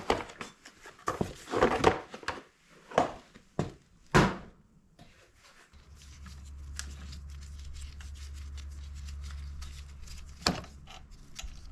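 Knocks, clicks and rattles of dirt bike plastics and intake parts being handled and pulled off by hand, with the sharpest knock about four seconds in. From about six seconds in a steady low hum comes in underneath.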